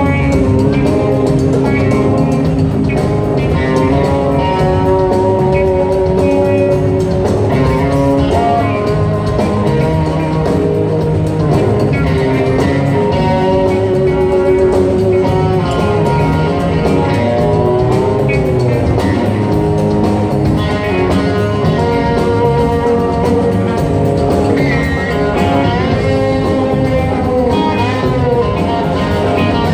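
Live rock band playing a guitar-led instrumental passage: electric guitars, keyboards and drum kit, with held, bending lead notes.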